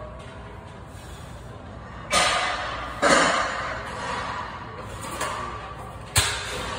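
A set of lat pulldowns on a cable weight-stack machine: three sudden noisy sounds, about two, three and six seconds in, each fading away over about a second.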